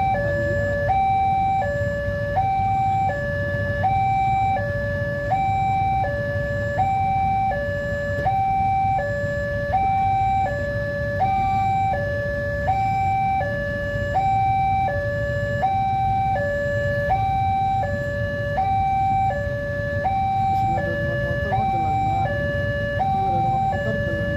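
Railway level-crossing warning alarm sounding continuously: an electronic two-tone signal alternating evenly between a higher and a lower tone, about one high-low cycle a second, which warns that a train is approaching. A steady low rumble runs underneath.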